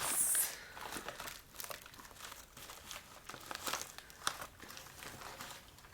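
Plastic packaging of a DVD box set crinkling and crackling in the hands in scattered small clicks, with a short hiss at the start.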